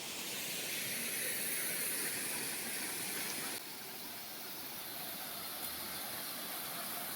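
Waterfall rushing down rocks: a steady hiss of falling water, which drops slightly in level about three and a half seconds in.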